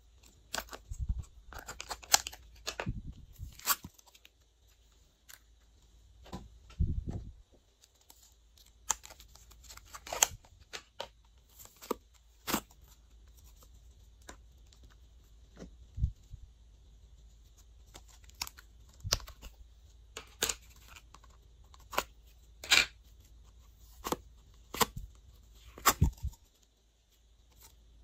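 Plastic tubs of store-bought slime being opened and handled: irregular sharp clicks, taps and crackles of the plastic lids and tubs, with tearing sounds as the slime is peeled out of its container.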